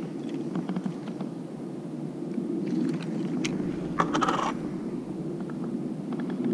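Small clicks and scrapes of fishing tackle being handled on a wooden table (fishing line spool, plastic tackle box, floats), with a short louder clatter about four seconds in, over a steady low background rumble.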